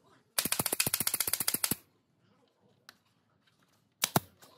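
Pneumatic nail gun firing into pallet wood: a rapid burst of about a dozen shots a second lasting over a second, then two more sharp shots near the end.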